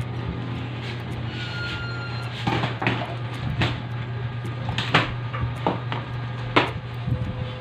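Handling of a computer keyboard and its cable at a desk: about half a dozen sharp plastic knocks and clatters, the loudest near the middle and shortly before the end, over a steady low hum.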